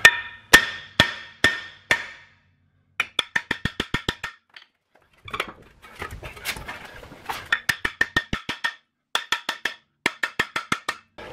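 Metal hammer striking a seized rear brake rotor to break it loose from the hub, each blow making the cast-iron rotor ring. First a few separate blows about half a second apart, then quick runs of lighter taps, several a second.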